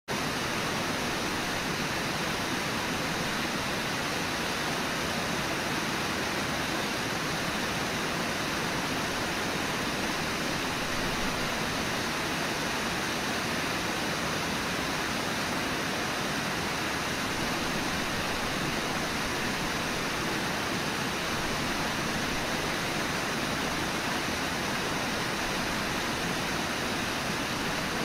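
Whitewater of the Brooks River rapids below Brooks Falls rushing steadily and evenly, with no breaks or other events.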